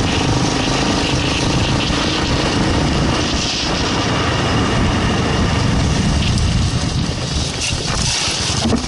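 Kawasaki KLR650's single-cylinder engine running as the motorcycle rides off-road, mixed with heavy wind rush on the microphone; the level eases slightly near the end.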